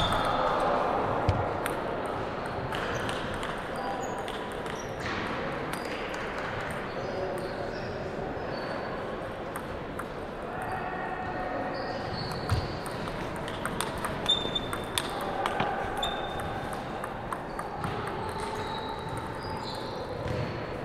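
Table tennis balls bouncing and clicking sporadically in a large, echoing gym hall, with indistinct voices talking in the background.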